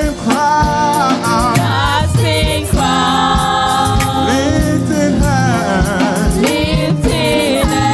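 Gospel praise music: several voices singing together over a band with bass and drums.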